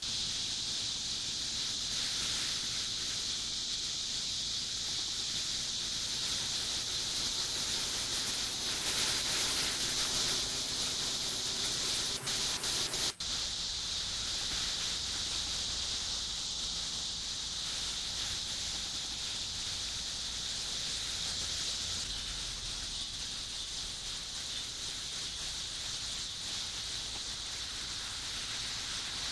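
A steady high-pitched hiss, broken by a few short dropouts and a brief gap about twelve to thirteen seconds in.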